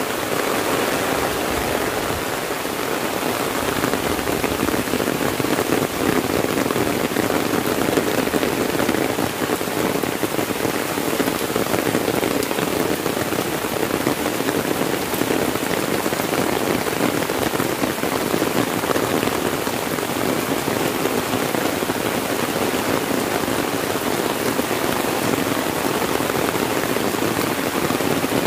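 Heavy rain falling steadily on an umbrella held overhead and on the dense foliage around it.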